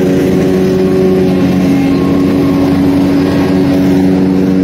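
Riding lawn mower engine running steadily, a constant drone whose note drops slightly about a second and a half in.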